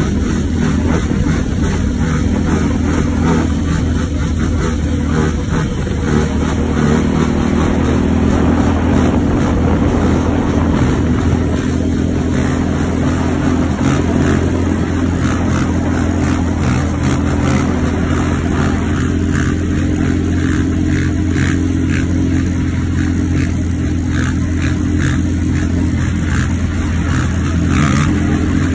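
Sport ATV engine running loud and steady under throttle, its pitch holding with only small rises and falls.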